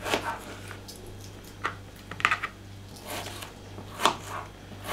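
Kitchen knife cutting a radish into cubes on a plastic cutting board: about half a dozen sharp, irregularly spaced knocks as the blade goes through and hits the board.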